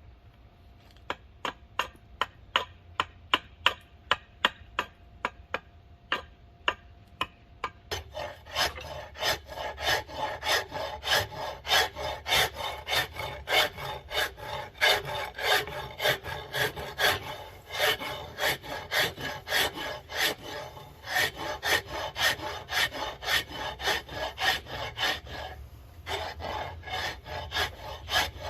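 Hand tool worked back and forth on a hickory axe-handle blank, about two strokes a second: short, separate strokes at first, then from about eight seconds in a steadier run of longer, continuous strokes.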